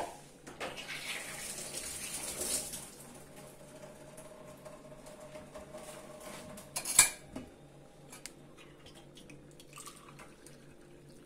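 Water poured into a drinking glass for about two seconds, followed by one sharp clink of glass or dishware about seven seconds in.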